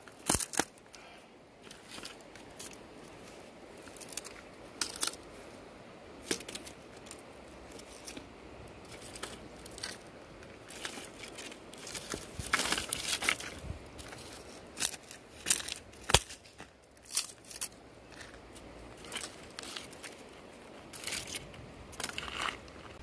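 Irregular snaps, crackles and crinkling of dry kindling being handled and broken while a wood fire is being lit, with a denser cluster of snaps about halfway through.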